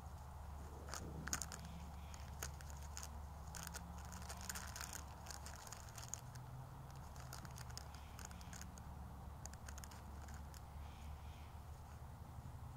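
Faint scattered crackles and clicks over a steady low rumble in a quiet field recording. The sharpest click comes about a second in, and a cluster follows around four to five seconds.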